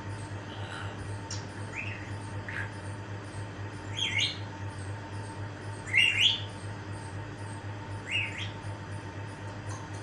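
African grey parrot giving short chirps, about seven spread through, the loudest about four and six seconds in, over a steady low hum.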